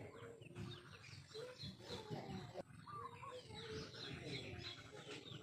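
Birds chirping in many short, quick calls.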